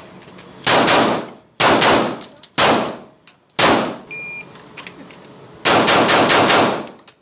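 9mm pistol shots on an indoor range: four single shots about a second apart, then a quick string of several shots near the end, each with a short echo.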